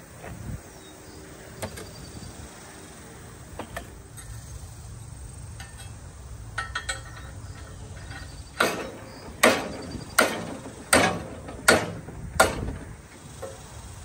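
Six sharp metal-on-metal blows about three-quarters of a second apart, each with a short ring, struck on a railroad crossing gate mechanism, as if a part is being knocked into place with a hammer. A few light clicks of handled metal parts come before them.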